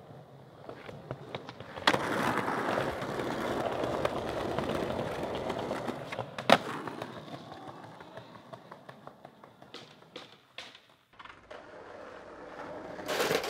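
Skateboard wheels rolling over concrete paving slabs, with a sharp board crack about two seconds in and a louder clack at about six and a half seconds. Scattered clicks follow, then the rolling starts again and grows louder near the end.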